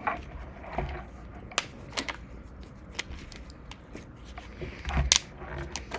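Trading cards being handled: scattered short, sharp clicks and snaps as cards are flipped and set down, the loudest about five seconds in.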